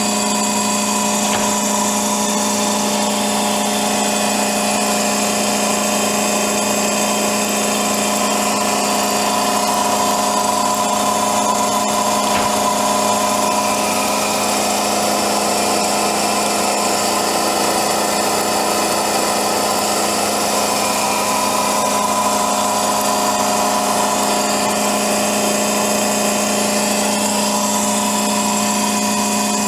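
Alfa Laval disc stack centrifuge running steadily at speed while clarifying contaminated diesel fuel: an even, unchanging hum with a whine above it.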